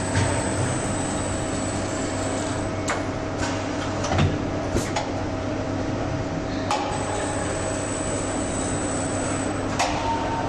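Automated assembly-line machinery running steadily with a hum and a high thin whine, broken by a few short clicks and clunks; the whine drops out for a few seconds in the middle.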